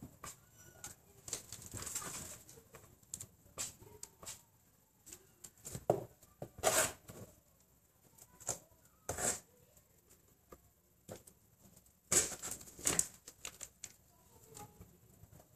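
A cat licking yogurt out of a plastic yogurt pot and pawing at it: scattered soft clicks and rustles of the plastic on cardboard, with a few sharper ticks in two clusters, midway and again about three quarters of the way through.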